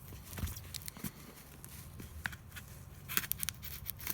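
Packaging being handled and worked open: scattered small crinkles and clicks, with a denser rustle a little after three seconds in.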